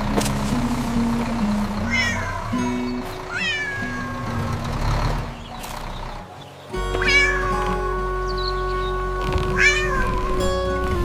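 Cat meows, about five short calls, over soft background music that dips briefly near the middle and comes back fuller.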